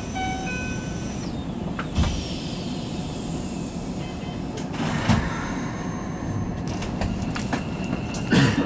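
Inside the cab of a Keikyu New 1000 series electric train stopped at a platform: a chime of stepped electronic tones ends about a second in, then a falling tone. Clicks and knocks of doors and cab equipment follow, with a loud clunk near the end as the train begins to move off.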